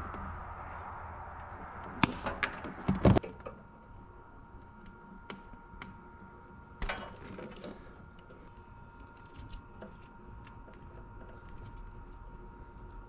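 Hand tools working on wiring: pliers and a utility knife handling wires and plastic wire loom, making small clicks and rustles, with sharper snaps about two and three seconds in and another near seven seconds.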